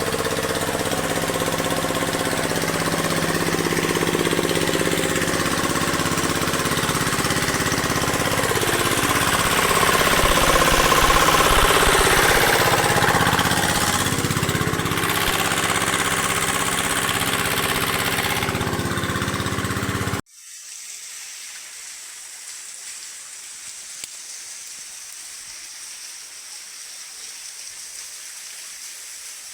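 A small engine running steadily, with a loud noisy rush over it. It cuts off abruptly about twenty seconds in, leaving a fainter steady hiss.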